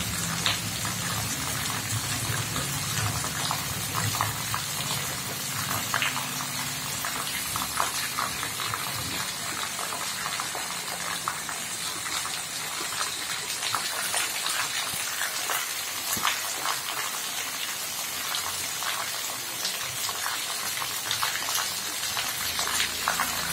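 Heavy monsoon rain pouring steadily, with runoff streaming off clay-tile roof eaves and splashing into puddles on a muddy lane: a dense, even hiss full of drop splashes.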